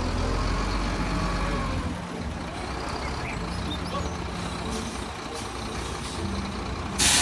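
Concrete mixer truck's diesel engine running, a steady low rumble that is heaviest in the first two seconds. A short, loud hiss breaks in near the end.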